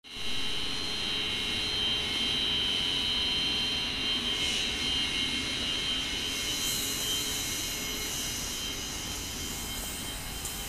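Chiller plant-room machinery (chillers and pumps) running: a steady industrial hum with high, steady whining tones above it. About two-thirds of the way in a brighter hiss joins and the whine eases slightly.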